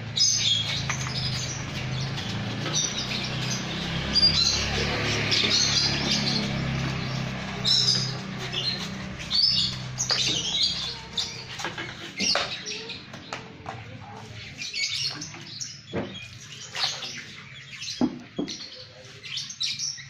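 A flock of lovebirds chirping in quick, overlapping high calls. A steady low hum runs under the first half, and scattered sharp knocks come in the second half.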